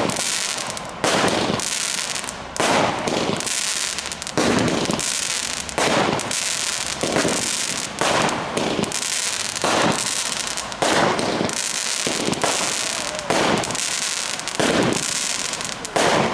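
Fireworks display going off in quick succession: a sharp bang about once a second, with crackling between the bangs.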